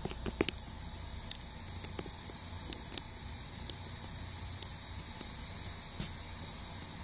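Steady low rumble of an idling truck diesel heard from inside the cab, under an even hiss, with a few scattered sharp clicks.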